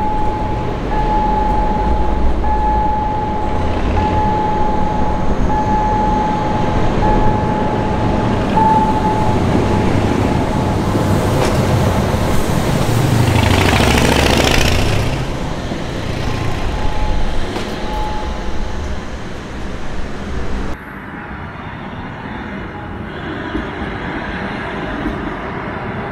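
A narrow-gauge electric train passing close, its noise swelling to a peak and fading away. A warning tone beeps about once a second over the rumble at first. The sound cuts abruptly to quieter surroundings about three-quarters of the way through.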